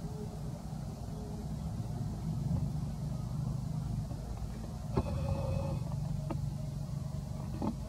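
Steady low rumble of a running engine, with a click and a brief high call about five seconds in.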